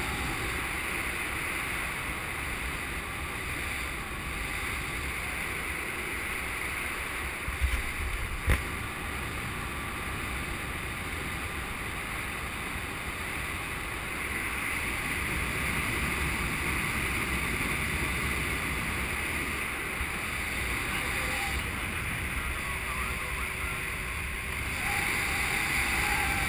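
Steady wind rushing over a GoPro camera's microphone during paraglider flight, with two brief knocks around eight seconds in.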